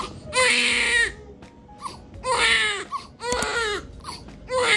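Newborn baby crying in four short, loud cries, each falling in pitch at its end, with brief pauses for breath between them.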